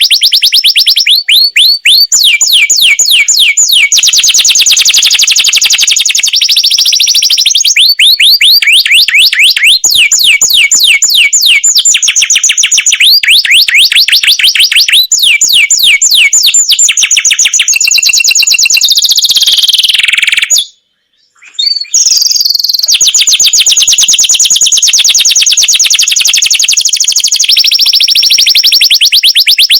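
Domestic canary singing long rolls: fast runs of rapidly repeated high notes that change pattern every few seconds. The song breaks off for about a second roughly two-thirds of the way through.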